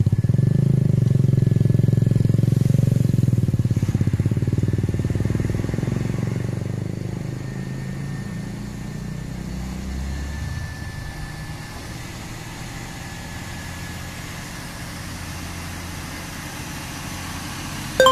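Diesel engine of a MAN tractor unit pulling a low-loader trailer up a steep climb: a deep, loud, pulsing drone at first that eases off about six to eight seconds in and then runs on more quietly. A single sharp clank near the end.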